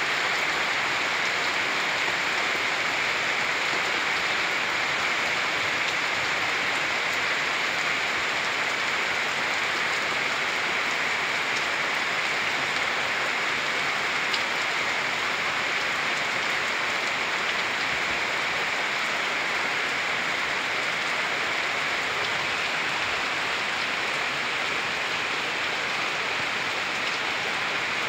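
Heavy rain falling steadily: an even, unbroken hiss of a downpour with no letup.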